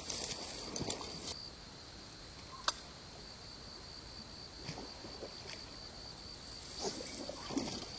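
A steady high-pitched insect trill, like crickets, with faint scattered rustles and small clicks, and one sharp click about a third of the way in.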